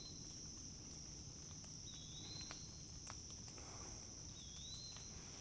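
Quiet woodland ambience: a steady high insect drone, a short high bird call repeated about every two and a half seconds, and faint footsteps on the trail.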